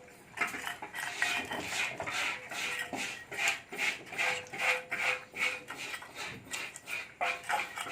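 Repeated light metallic clinking and rattling, about two or three strokes a second, with a faint ringing after some strokes.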